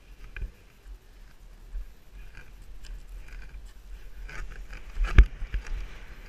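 A paraglider pilot's running footsteps crunching on loose gravel during the launch run, an irregular patter of steps with one loud knock about five seconds in.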